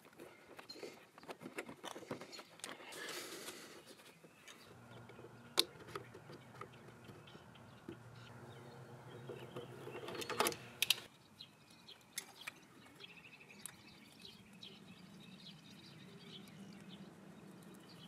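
Faint scattered clicks, taps and rustles of hands and tools refitting coolant hoses and drain plugs on a BMW R1200GS engine. There is a sharper clack about five and a half seconds in and a short run of clicks around ten seconds in.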